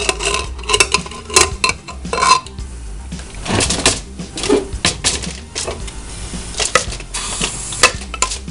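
Metal clinks and clatters of a pressure cooker's lid and pot being opened and handled, with a spoon knocking against the pot.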